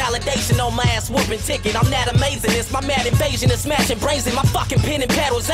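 Hip hop track: a voice rapping over a beat with a steady kick drum and bass.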